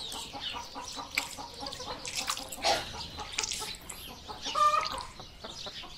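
Hands squeezing and kneading sliced beef in a liquid marinade in a plastic bowl, making irregular wet squelches and squishes. A short bird call comes in the background near the end.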